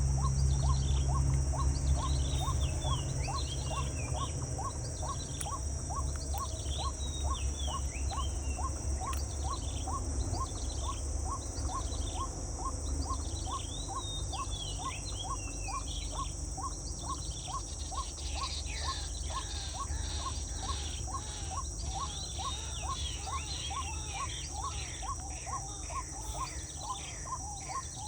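Outdoor nature ambience: birds chirping over a steady high insect drone, with a short note repeating about twice a second throughout. A low rumble is strongest in the first few seconds and then eases.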